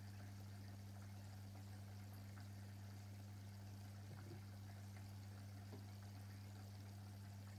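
Aquarium equipment humming steadily with a faint trickle of water, low and constant throughout.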